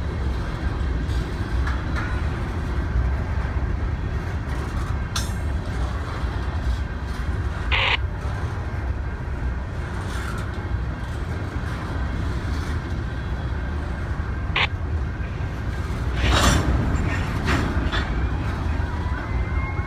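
Empty covered hopper cars of a freight train rolling past with a steady low rumble. A few short, sharp squeaks and clacks stand out above it.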